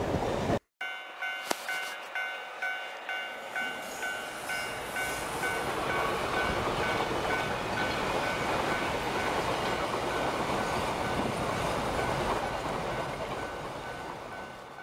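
Diesel snowplow train passing while plowing deep snow: a steady rush of running gear and thrown snow, with a high tone pulsing about twice a second. The sound cuts out briefly about half a second in and fades near the end.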